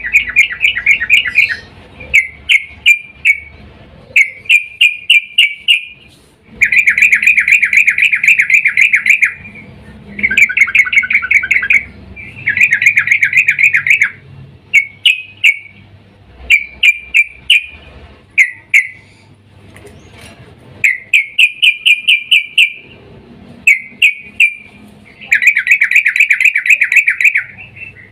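Female yellow-vented bulbul (trucukan) calling in breeding excitement: loud, rapid chattering bursts of quick repeated notes, some brief and some running two to three seconds, over and over with short pauses between.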